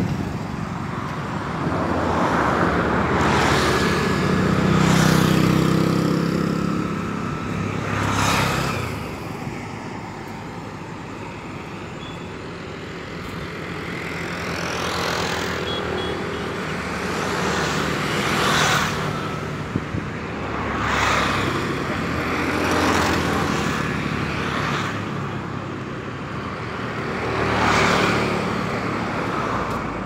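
Road traffic passing: one vehicle after another goes by, each swelling and fading over a couple of seconds, with a lower engine hum from one of them about four to six seconds in.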